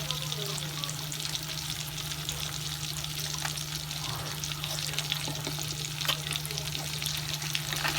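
Food frying in a hot pan: a steady sizzle with many small crackles, over a steady low hum.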